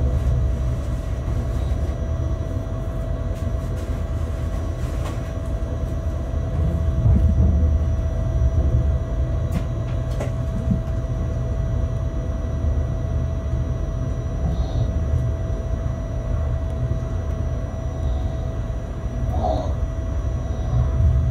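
Bombardier Traxx BR186 electric locomotive moving slowly while shunting, heard from inside the cab: a steady low rumble of the running gear on the rails with a constant whine over it, and a few sharp clicks.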